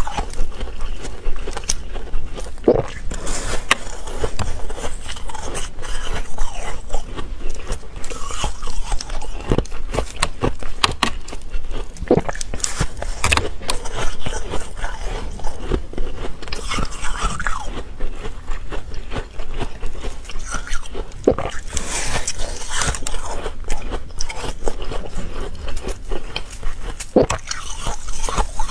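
Close-miked biting and chewing of fluffy, frost-like ice, crunching with many sharp crackles throughout.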